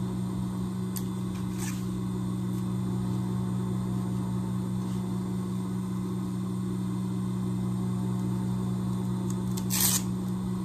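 Raincoat fabric being handled and smoothed by hand, rustling, with a few faint clicks in the first two seconds and a short, louder rustle about ten seconds in, over a steady low hum.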